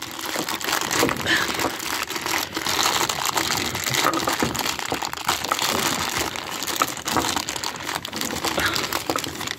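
Clear plastic bag crinkling and crackling continuously as hands pull and work at it to get it open.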